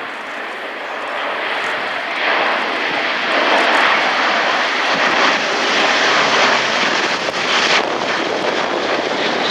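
Airbus A400M's four TP400 turboprop engines at display power as the transport flies past. The engine noise grows louder about two seconds in, stays loudest through the middle, and eases slightly near the end.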